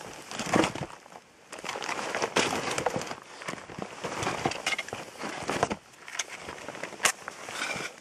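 Close handling noise: rustling and crinkling with scattered sharp clicks and snaps, then a match struck near the end, a sharp scrape followed by a brief flare.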